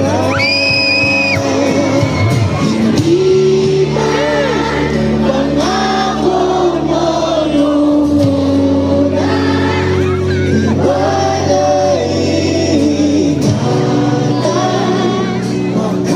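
A live band playing through a PA, with several voices singing a held, slow melody over steady low notes.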